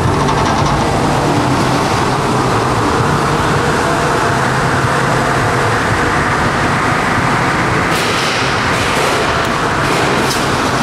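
Spinning weapons of two lightweight combat robots, an undercutter and an overhead bar spinner, running with a steady loud whirring hum. From about eight seconds in, sharp clanks of metal impacts break in several times.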